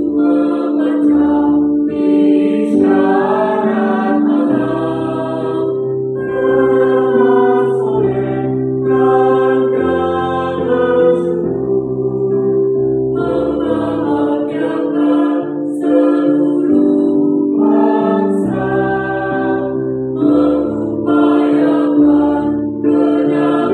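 Mixed choir of women's and men's voices singing in parts, holding long chords that change every second or two.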